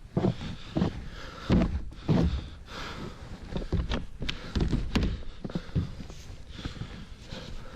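Irregular thuds and knocks, several heavy ones among lighter taps.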